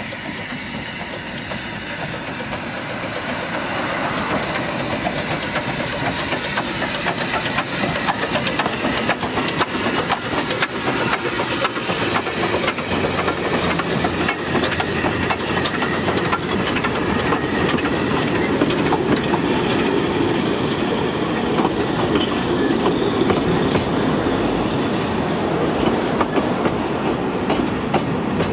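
Narrow-gauge steam train passing close by: the sound grows louder over the first several seconds as the locomotive nears. The wheels then click over the rail joints as the locomotive and its coaches roll past with a steady rumble.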